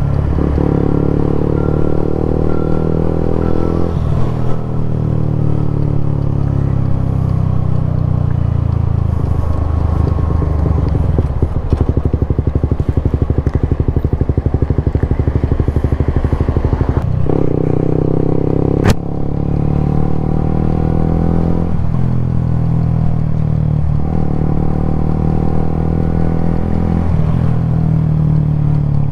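Suzuki GSX-S125's single-cylinder four-stroke engine running in city traffic, its pitch climbing as it pulls and dropping sharply at each gear change, several times over. In the middle it runs low with a fast pulsing, and there is a single sharp click about two-thirds of the way in.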